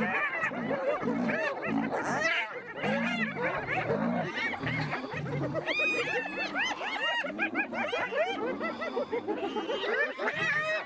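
A group of spotted hyenas calling together: a dense chorus of overlapping high yelps and giggles, each rising and falling quickly in pitch.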